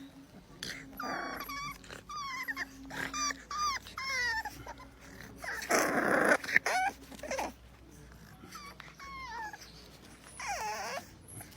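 Bulldog puppy whining and whimpering in short, high-pitched, wavering cries that come in groups, with one louder, harsher burst about six seconds in.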